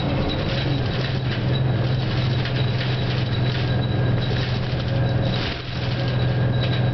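Detroit Diesel 6V71N two-stroke V6 diesel of a 1987 GM Classic bus running steadily under way, heard from inside the bus, with a steady low drone. The level dips briefly a little over halfway through.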